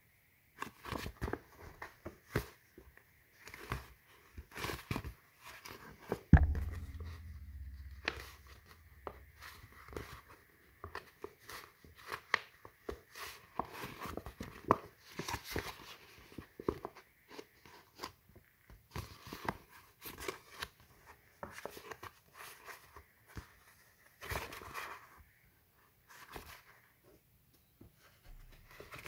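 Stiff polypropylene sheet being creased and folded by hand: irregular crackling clicks and rustles as the scored lines are pressed into folds. A loud thump about six seconds in, with a low hum dying away over the next few seconds.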